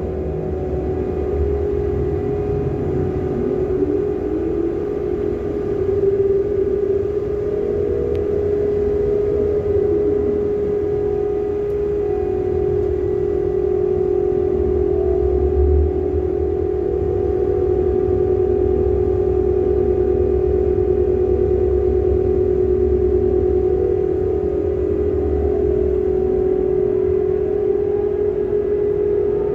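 Bulk carrier's deck crane machinery running while it works a coal grab over the hold. A steady hum with a low rumble, and tones that slide up and down in pitch every few seconds.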